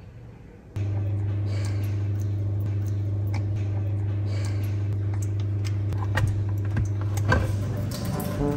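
Water poured from a metal pitcher into a steamer pot of eggs and sweet potatoes, with scattered clicks and taps, over a steady low electrical hum that starts abruptly about a second in.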